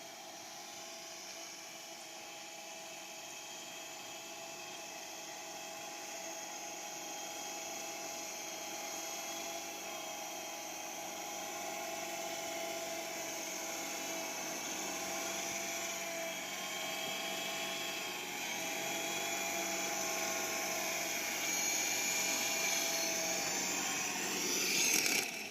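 Small electric R/C helicopter (U12A) in flight: a high-pitched motor and rotor whine whose pitch wavers slightly with the throttle. It grows gradually louder, peaks just before the end, then drops away sharply.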